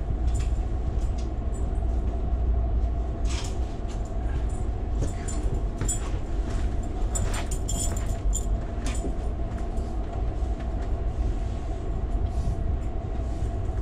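Amtrak passenger train running along, heard from inside the car: a steady low rumble with a faint steady hum, and scattered light clicks and rattles in the middle.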